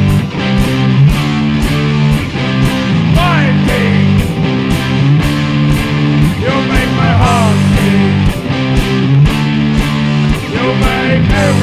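Live rock band playing an instrumental passage: electric guitar, bass, keyboard and drums, with a steady cymbal beat about twice a second and a few sliding high notes.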